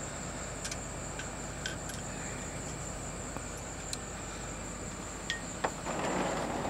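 Light clicks and taps of tools being handled, over a steady background hum with a thin high whine. About six seconds in, packaging starts rustling.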